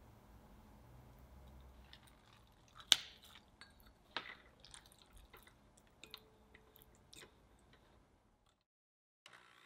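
Small sharp clicks and ticks in a glass bowl of warm syrup as a soaked gelatin sheet and vanilla extract go in. One sharp click about three seconds in is the loudest, with a second about a second later.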